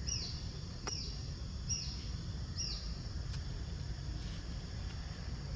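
Four short, high-pitched animal chirps, each falling in pitch, repeated about once a second and then stopping about three seconds in, over a steady low rumble.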